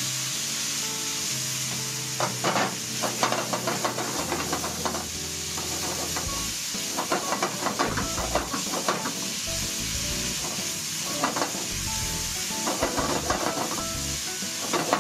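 Diced chicken and onion sizzling in olive oil in a nonstick frying pan, being lightly stir-fried to finish cooking the chicken through. A wooden spatula scrapes and knocks against the pan in short runs every few seconds over the steady sizzle.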